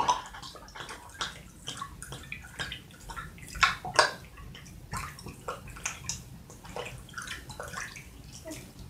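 A man chugging bourbon straight from the bottle: a steady run of gulps, about two or three a second, with the liquor glugging out of the bottle neck.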